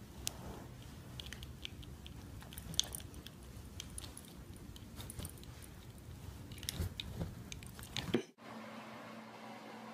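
A dog moving right at the microphone: rustling and a low rumble, with scattered light metallic clicks and clinks from its chain collar and tags. Near the end the sound cuts off abruptly and a steady low hum takes over.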